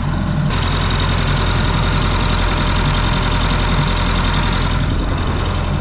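Massey Ferguson 168 tractor's four-cylinder diesel engine running steadily. From about half a second in until near the end, a brighter hiss with a steady whine sits over the engine.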